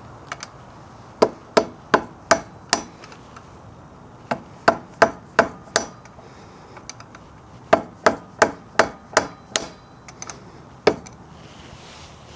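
Hammer blows on metal, trying to knock a part out of a motorcycle's front wheel: three quick runs of five or six strikes, about three a second, then one last blow near the end, each with a short ring.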